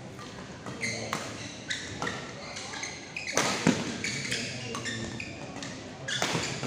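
A badminton rally: sharp hits of the shuttlecock off rackets and short high squeaks of shoes on the court floor, several times. There is a louder, rough burst of noise about halfway through, and another near the end.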